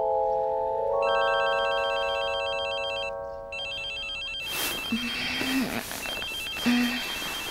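An electronic telephone ringing in a fast warbling trill, in bursts of about two seconds with short gaps, over sustained chime-like music notes that fade out about halfway through. From about halfway a rough hiss joins in, with two short low hums.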